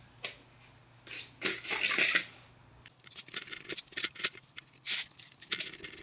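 Small handling noises: a cable being moved and rubbing, then a run of quick clicks and scrapes as a screwdriver works the screw terminals of an LED power supply.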